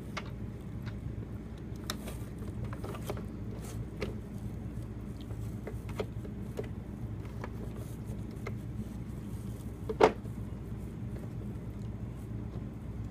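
Scattered light clicks and taps from handling a toy truck's parts while it is being cleaned, with one louder sharp knock about ten seconds in, over a steady low hum.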